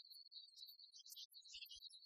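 Near silence, with only faint, scattered high-pitched blips.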